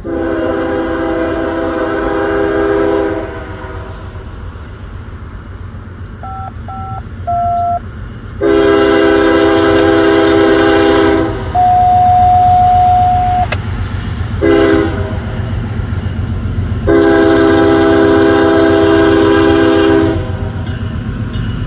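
Norfolk Southern diesel locomotive's air horn sounding the grade-crossing signal as the train approaches: long, long, short, long, over the steady low rumble of the engine.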